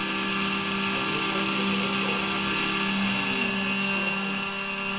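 Desktop CNC milling machine (model 7073) with its spindle running and the cutter milling aluminium: a steady, even machining whine with a cutting hiss.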